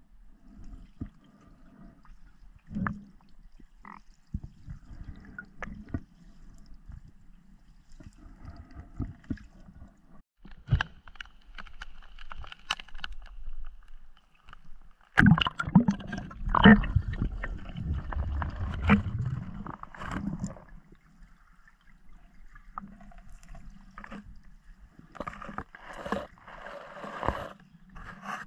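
Water sounds picked up by a spearfisher's camera as it moves underwater and at the surface: scattered muffled clicks and knocks with gurgling. About fifteen seconds in comes a louder stretch of splashing and gurgling lasting about five seconds.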